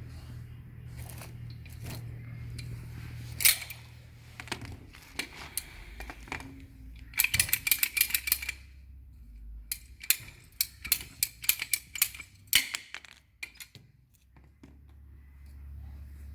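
Bursts of rapid sharp clicks and clatter from plastic pipe, fittings and hand tools being handled, over a low steady hum. There is one loud click about three seconds in, then a dense run of clicks at about the halfway point and another run a few seconds later.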